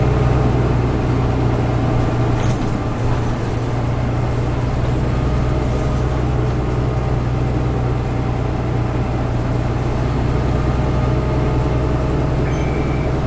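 Mitsubishi KK-MK23HJ bus's diesel engine and road noise heard inside the passenger cabin while driving at a steady pace, as a low steady hum. A brief clatter comes about two and a half seconds in.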